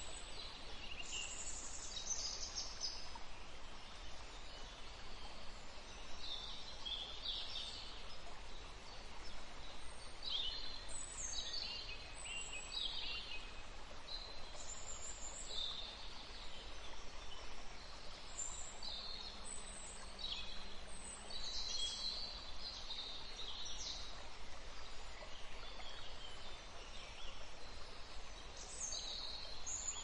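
Rainforest ambience: several birds calling on and off in short, high, mostly falling chirps over a steady, even background hiss.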